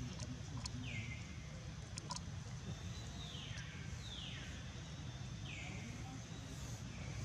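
Four short whistle-like animal calls, each falling in pitch, spread over a few seconds, over a steady low outdoor rumble with a few faint clicks.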